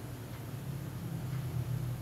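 A steady low hum, with no distinct events.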